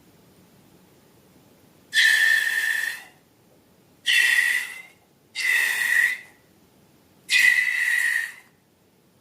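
Air escaping from a stretched balloon neck, a whistling squeal over a hiss, in four bursts of about a second each.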